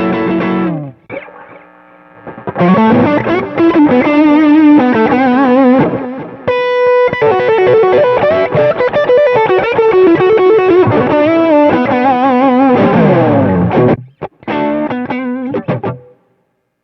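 Distorted electric guitar, a 1990s Giannini Stratosonic, played through the Sonicake Sonic IR pedal's speaker-cabinet impulse response straight into the line. A held chord rings out, then a lead phrase with bent and vibrato notes, a sliding run downward near the end, and a short closing phrase that cuts off.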